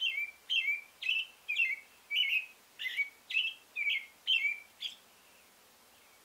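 Male American robin singing its territorial song: a run of about ten short, clear caroling phrases, roughly two a second, stopping about five seconds in.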